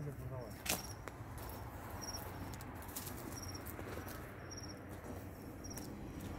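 Crickets chirping in short, high bursts every second or two, with footsteps and scattered clicks on a dirt path, one sharper click just under a second in.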